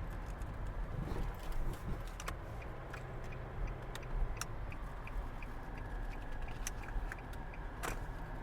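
BMX bike being ridden, with wind rumbling on the helmet camera's microphone and tyre noise. The rear hub ticks steadily, about three or four clicks a second, as the bike coasts.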